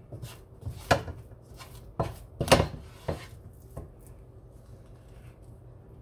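A metal spoon and wooden spatula knocking and scraping against a plate while thick ube halaya is spread over a banana leaf: about half a dozen knocks in the first four seconds, the loudest about two and a half seconds in.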